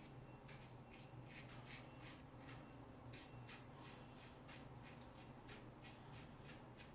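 Razor strokes scraping lather and stubble off the face: a series of short, faint, scratchy strokes, two or three a second, with one sharper click about five seconds in.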